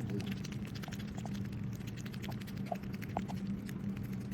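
A cat eating, with many soft, irregular clicks and smacks of chewing over a steady low hum.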